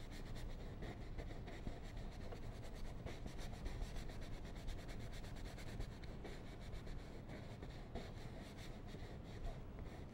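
Paintbrush brushing over an oil-painted canvas in many quick, short back-and-forth strokes, blending wet paint.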